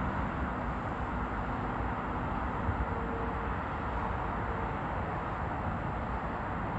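Steady hum of distant city traffic, with a faint brief tone about three seconds in.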